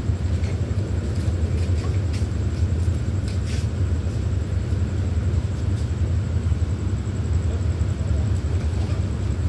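Diesel-hauled express train standing at a station platform, its engines running with a steady low rumble, with a few faint clicks over it.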